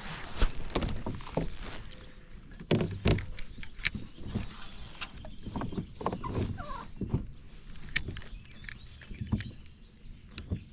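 Irregular knocks and clicks of fishing gear being handled in a kayak, over a low steady rumble.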